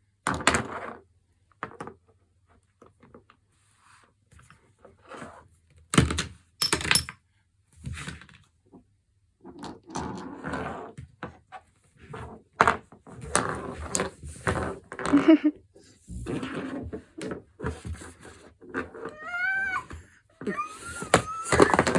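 Small glass nail polish bottles knocking and clinking against a wooden floor and a plastic basket as a toddler handles them, in scattered single knocks. Near the end a small child's voice babbles.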